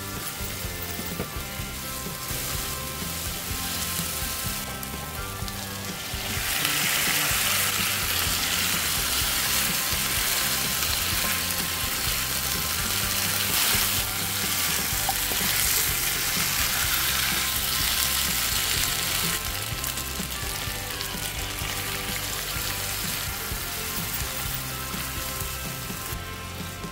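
Food sizzling in hot oil in a nonstick wok while it is stirred with a spatula: first minced garlic and onion with tomato paste, then chicken pieces. The sizzling grows louder about six seconds in and eases off after about nineteen seconds.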